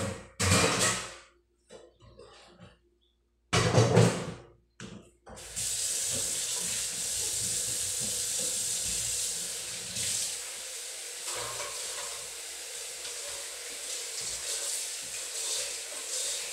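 A kitchen tap runs into a stainless-steel sink as dishes are rinsed: a steady stream of water starting about five seconds in. Before it come two short loud sounds.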